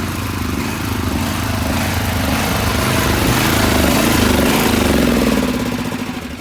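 Gas engine of a pressure washer running steadily, then dying away near the end as it shuts off.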